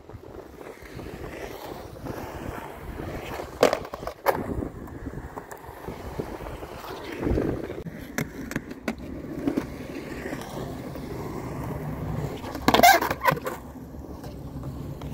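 Skateboard wheels rolling on concrete, with sharp clacks of the board hitting the ground, two of them a little over three and four seconds in, and a louder burst of clattering a couple of seconds before the end.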